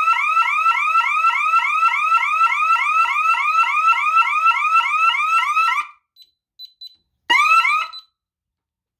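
DSC security system's alarm siren sounding a rapidly repeating rising yelp, about three and a half sweeps a second, for the alarm on the front-door zone. It cuts off about six seconds in as the system is disarmed at the keypad, a few faint keypad beeps follow, and the siren sounds once more for under a second.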